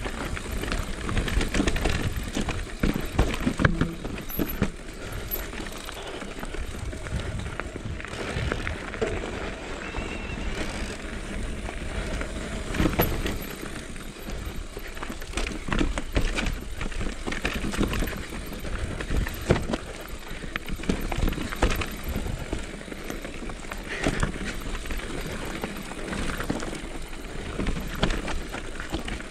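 Mountain bike riding down a rocky dirt trail: tyres rolling over stones with a low rumble, and the bike rattling and knocking on every bump.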